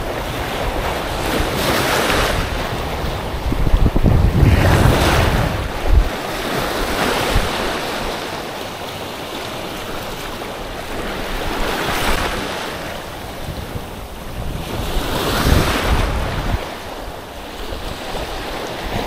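Sea waves breaking and washing up the shore, the hiss swelling about five times a few seconds apart, with wind buffeting the microphone in a low rumble.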